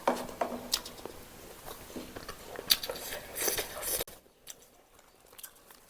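Close-miked eating sounds: a person biting and chewing whole roast chicken, with sharp clicks and crunches, which drop away about four seconds in.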